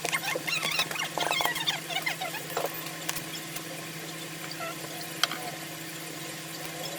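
Short scratchy squeaks and ticks of hand tools working on a phone's cracked back glass and adhesive, busiest in the first three seconds, with a sharp click a little after five seconds, over a steady low hum.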